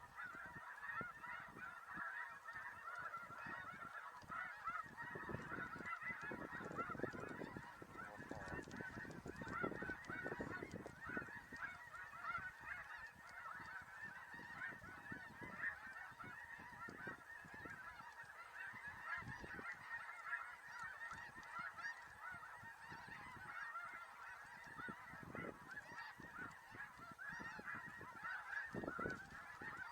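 A dense chorus of snow goose calls, many short overlapping honks running on without a break, with bursts of low rumble a few seconds in and again near the end.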